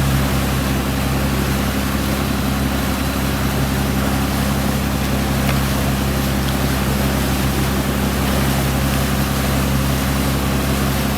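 Sportfishing boat's engine running steadily underway, a constant low drone, with the rush of water along the hull.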